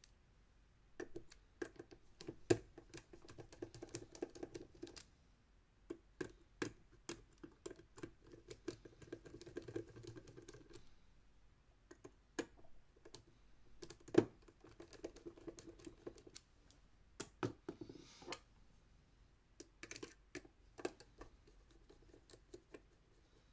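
Small screwdriver turning the screws out of the plastic top of a Canon EOS 1200D (Rebel T5) DSLR body: faint runs of quick clicks and scraping lasting a few seconds each, separated by short pauses, with a couple of sharper knocks.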